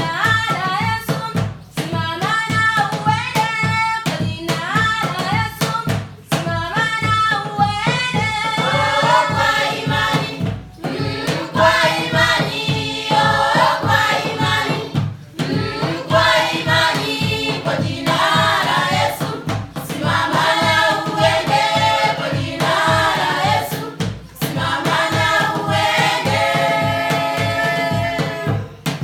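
Music: a choir singing in several voices over a steady low beat, in phrases with short breaks between them.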